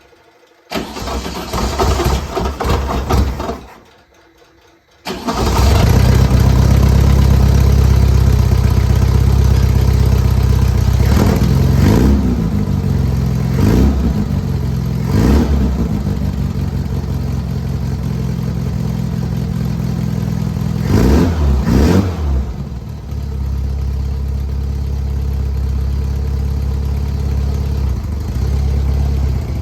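1967 Volkswagen Beetle's air-cooled flat-four cranking on the starter for about three seconds, then catching on a second try about five seconds in. It is revved several times before settling to idle. This is a first start after the engine was reinstalled, with the oil cooler still dry.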